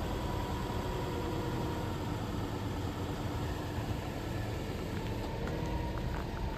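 Subaru Forester's EJ20 2.0-litre flat-four engine idling steadily. From about five seconds in, a few light ticks of footsteps on gravel come in.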